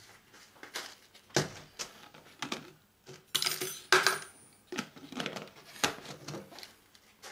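Small pieces of brass scrap clinking as a handful is dropped, a string of sharp metallic clinks with a louder clatter around three and a half to four seconds in.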